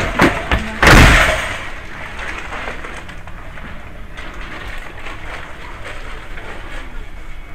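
A few sharp clicks, then a loud thump with a rustle about a second in, followed by a steady background din.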